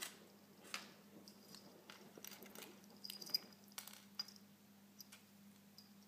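A Bengal kitten pawing and batting a small plastic Lego piece on a wooden floor: faint, scattered light clicks and taps, the sharpest about three seconds in, over a faint steady hum.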